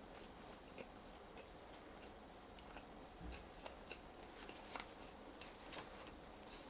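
Faint eating sounds: scattered soft clicks and crackles of someone chewing fries, over a quiet room hiss.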